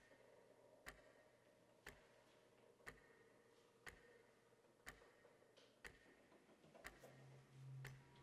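Faint clock ticking steadily, about one tick a second, with a low hum swelling near the end.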